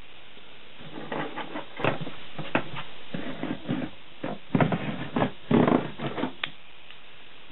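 Utility knife blade drawn along a steel square, scoring and cutting through ribbed plastic drawer liner in a series of uneven scraping strokes with a few sharp clicks, starting about a second in and stopping just after six seconds.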